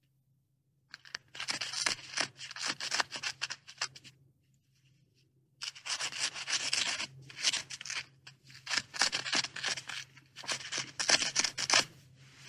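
Beaver gnawing: runs of rapid, rough scraping and crunching bites. They start about a second in, pause for about a second and a half in the middle, then go on.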